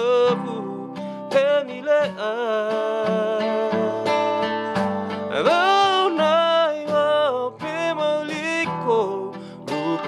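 Unplugged acoustic song: a man sings over a strummed acoustic guitar, with hand strokes on a cajón keeping the beat.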